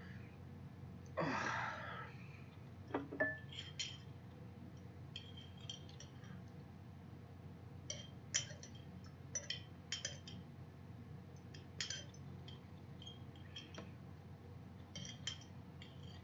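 Metal eating utensil clinking against a glass jar in scattered light taps. There is a short noisy rush about a second in, and a couple of duller knocks soon after.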